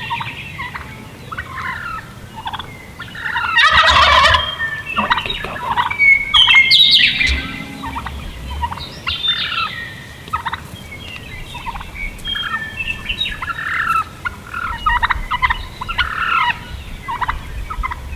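Wild turkey toms gobbling at close range, the two loudest gobbles about four and seven seconds in, with many shorter bird calls in between.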